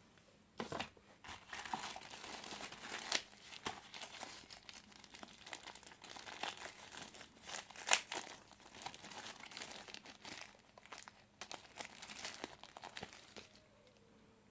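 Plastic phone packaging crinkling and crackling as it is handled, in irregular bursts with sharp clicks, starting about half a second in and stopping near the end.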